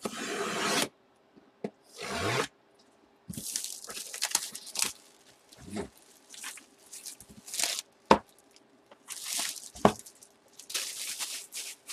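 Packing tape on a cardboard box being slit and peeled back, with repeated scraping and tearing bursts as the cardboard flap is worked open, and two sharp knocks in the second half.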